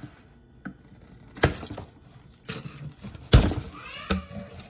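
A cardboard shipping box being pulled open by hand: the glued flap tears and snaps free with sharp cracks, one about a second and a half in and a louder one about three and a half seconds in. A crackling, scraping rustle of cardboard follows.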